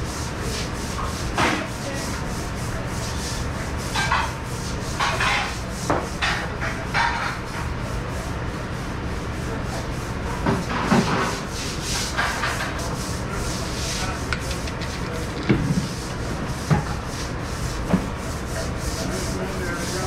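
Stiff-bristled deck brush scrubbing a wet kitchen floor: irregular rasping strokes, some every second or so and some several seconds apart, over a steady low hum.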